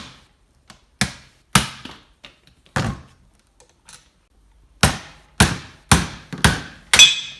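Hammer blows knocking a bearing out of a wheelchair rear wheel hub: eight sharp strikes with a brief ring, three spaced out over the first three seconds, then five quicker ones about half a second apart.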